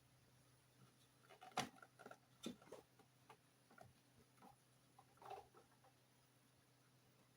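Faint, scattered light taps and clicks, the sharpest about one and a half seconds in and a small cluster a little after five seconds, over near silence.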